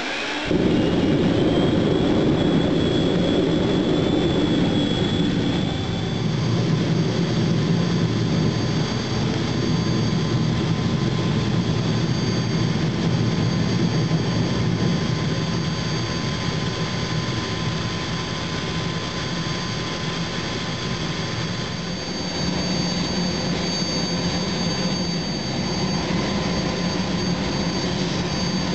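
Propane-fired metal-melting furnace burner running with a loud, steady rush of flame and air, as when melting cast iron. It gets louder just after the start.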